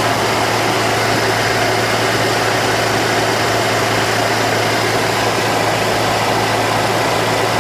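2007 Toyota FJ Cruiser's 4.0 L V6 engine idling steadily with its newly replaced power steering pump running, a constant hum and rush with no belt or pump squeal.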